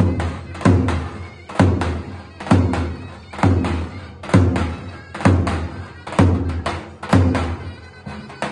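Davul, the large double-headed Turkish folk drum, beaten in a dance rhythm: a heavy bass stroke about once a second with lighter stick strokes between. A zurna plays a shrill folk dance tune over it.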